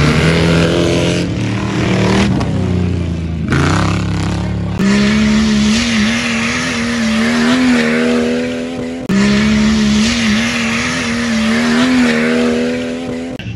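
Off-road 4x4 race vehicles' engines held at high revs as the tyres spin through soft mud. The engine note is loud and steady, with a slightly wavering pitch, and changes abruptly about 5 and 9 seconds in.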